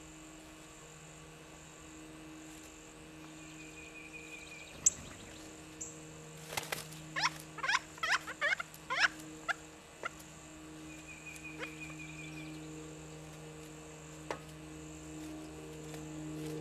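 Pileated woodpecker giving a rapid series of about ten short, sharp, downward-sliding calls over a few seconds, over a steady low hum and insect buzz.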